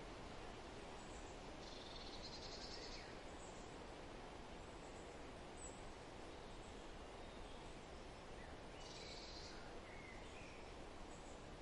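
Faint birds calling over a steady outdoor hiss: a high trill about two seconds in and another about nine seconds in, with a few short faint chirps between.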